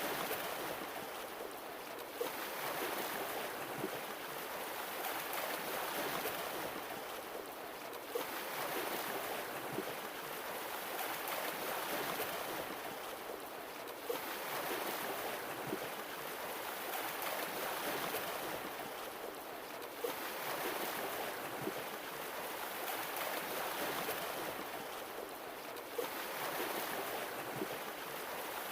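Ocean surf washing in: a steady hiss that swells and recedes about every six seconds, each surge opening with a short sharp tick.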